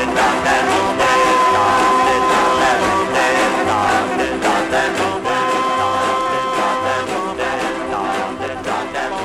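Late-1950s rocker-blues record playing: a full band over a repeating bass line, slowly getting quieter toward the end as the song fades out.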